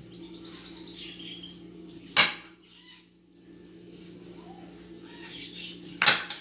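Kitchen knife cutting a chayote on a stone countertop, with two sharp knocks of the blade hitting the counter, about two seconds in and near the end. A bird chirps in quick falling notes during the first second, over a steady low hum.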